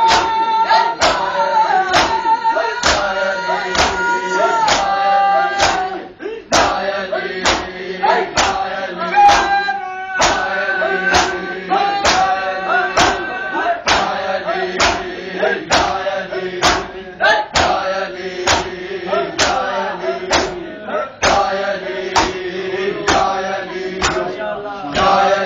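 Men's voices chanting a noha (Shia lament) in unison, with a steady beat of hands slapping bare chests in matam, a little under two slaps a second.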